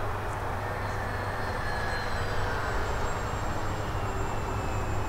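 Radio-controlled model airplanes flying past: a thin propeller and motor whine that drifts slowly down in pitch, over a steady low rumble of wind on the microphone.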